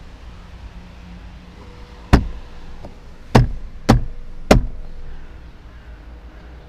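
Plastic retaining clips of a Seat Leon Mk3's rear door trim panel snapping loose as the panel is pulled off by hand: four sharp, loud pops, starting about two seconds in, over roughly two and a half seconds.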